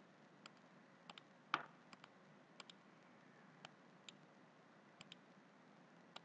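Computer mouse clicking: about a dozen short, sharp clicks, several in quick pairs, over faint hiss. The loudest click comes about one and a half seconds in.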